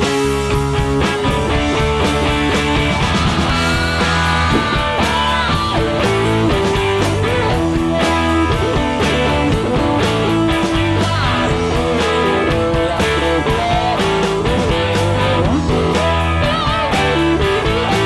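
Background rock music led by guitar, with a steady bass line.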